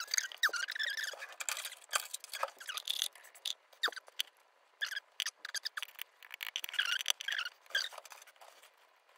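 A disassembled lock's brass plug, key and small pins handled by fingers over a plastic pin tray: scattered light clicks and taps mixed with short squeaky scrapes, thinning out for a couple of seconds in the middle.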